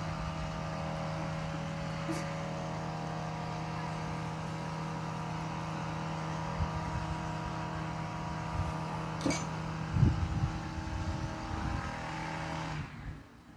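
A motor runs with a steady, even hum that stops suddenly about a second before the end. A low thump comes about ten seconds in, among a few lighter knocks.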